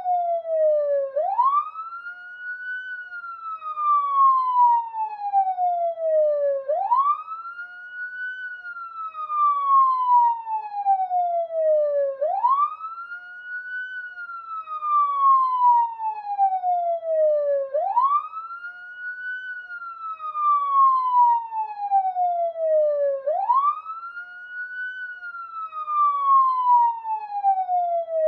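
Police siren wailing. Each cycle is a quick rise in pitch followed by a slow fall, repeating about every five and a half seconds.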